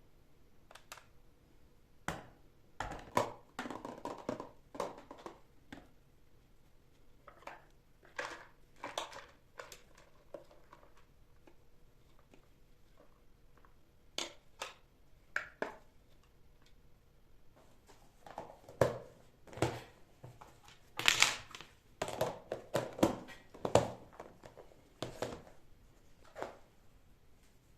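Items and packaging being handled by hand: irregular clicks, light knocks and crinkling rustles in a small room, busiest in two spells, one early on and one over the second half.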